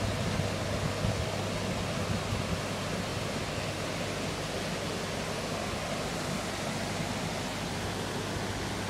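Steady rush of water pouring through a canal lock's sluices, with a low steady hum underneath.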